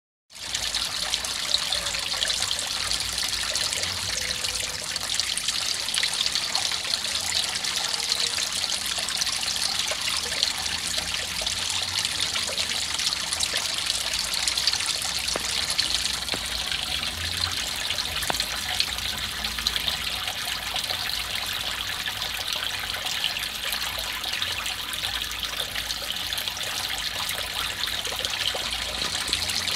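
Water falling in thin streams from holes in a hanging plastic-bottle filter and splashing steadily onto the surface of a shallow pond: a continuous trickling splash.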